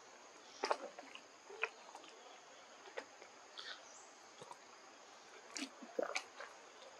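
Faint forest ambience: a steady high insect drone, with scattered short clicks and chirps, the strongest about two thirds of a second in and again near the six-second mark.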